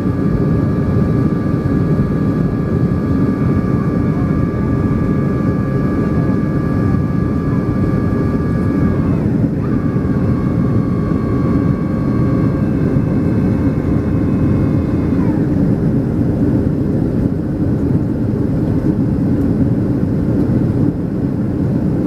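Inside the cabin of a Boeing 737-300 climbing after takeoff: the steady deep rush of air and its CFM56-3 turbofan engines. A high engine whine over it drops in pitch about nine seconds in and glides away around fifteen seconds in.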